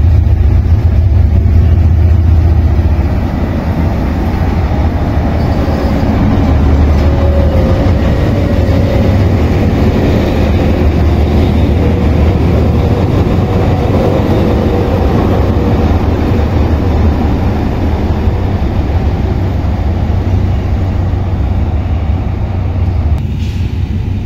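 Hitachi diesel-electric locomotive no. 4510 running slowly past close by, with a steady low engine rumble that is loudest for the first few seconds.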